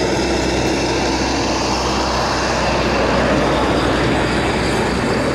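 Steady rumbling noise with a constant low hum.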